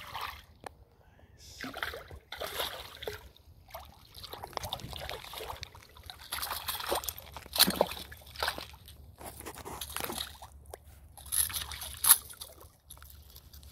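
A hooked 18-inch striped bass thrashing at the surface, slapping and sloshing the water in irregular splashes against the concrete edge of a canal. Near the end there is one sharper, louder splash as the fish flips at the water's edge on the concrete slope.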